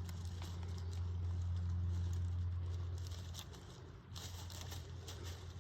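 A steady low hum, dipping briefly about four seconds in, with light rustling and pattering over it.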